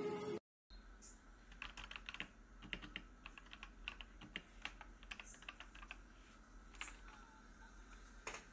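Typing on an AKKO MOJIKE GK1 mechanical keyboard with AKKO v2 switches: quick, irregular key clicks and clacks that begin about a second in.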